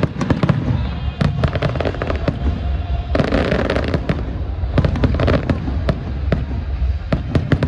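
Aerial fireworks display: rapid crackling of many small bursts over a steady low rumble. The crackles come in dense clusters, thickest about three seconds in and again near the end.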